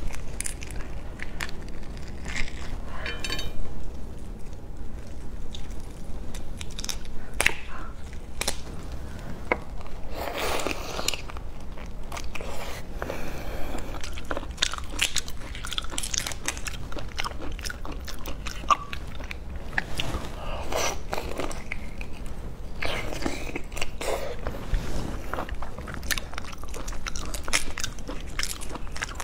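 Large raw marinated prawn being pulled apart and peeled by hand: irregular crackling of the shell and wet tearing, mixed with close-miked biting and chewing.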